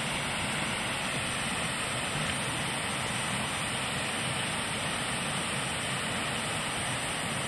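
Steady rush of a small waterfall spilling over rocks into a pool.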